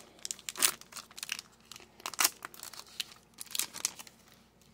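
Foil wrapper of an Upper Deck hockey card pack crinkling in the hands as the cards are pulled out of it, a string of short, sharp crackles that die away near the end.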